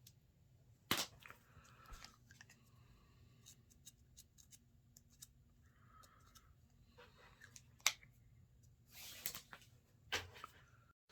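Scissors snipping 550 paracord amid quiet handling of the cord: scattered small clicks and rustles, with a few sharper snips.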